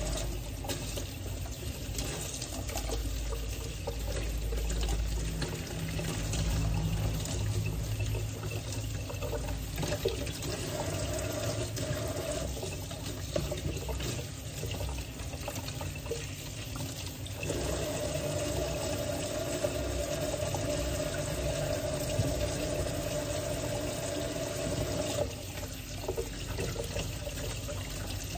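Kitchen tap running steadily into a stainless steel sink while leafy greens are rinsed by hand under the stream, with splashing and small knocks of the handled vegetables against the steel bowl. The water's sound changes as the greens are moved in and out of the stream, fuller and steadier for several seconds past the middle.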